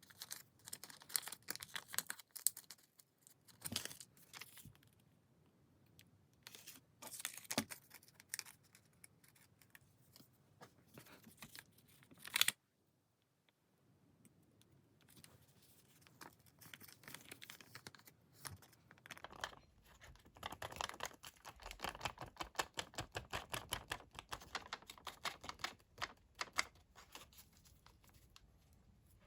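Coloured origami paper being folded and creased by hand: irregular crinkles and sharp paper clicks, one much louder snap about halfway, then a long fast run of scratchy rustling strokes in the later part.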